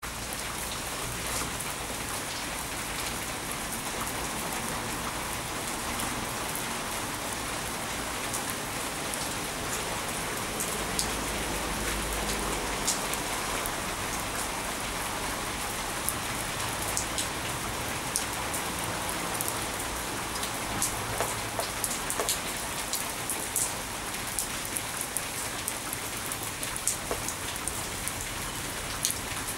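Rain falling steadily on stone paving and into a water-filled stainless steel dog bowl: a constant hiss with sharp individual drop ticks, which come more often in the second half.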